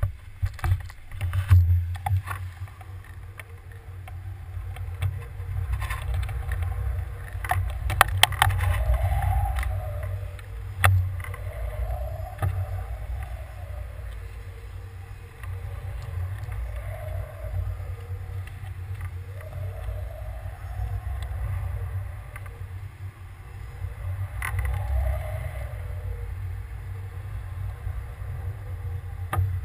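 Wind buffeting the microphone of a camera hanging beneath a climbing weather balloon: a steady low rumble, with occasional knocks from the swinging rig and a faint tone that swells and fades every few seconds.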